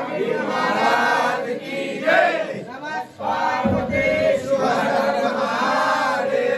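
A group of men chanting a Hindu devotional chant together in unison, in sung phrases with short breaks between them.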